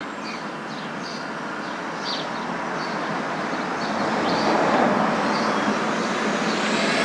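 A steady rushing noise that slowly grows louder, with faint short high-pitched chirps recurring about once a second.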